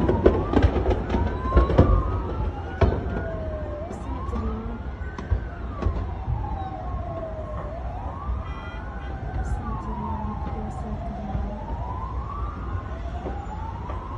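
Emergency vehicle siren wailing, rising and falling about every two seconds, over a low rumbling noise. A quick string of sharp bangs and pops from small explosions in the fire fills the first two seconds, with a few single sharp cracks later.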